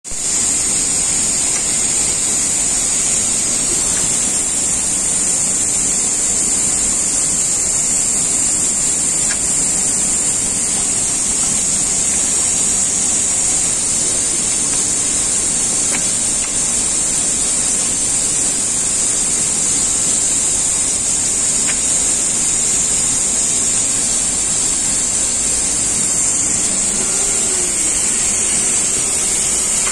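Multitest MT2168 IC test handler running: a loud, steady machine hiss with a strong high-pitched band, and a few faint clicks of its mechanism.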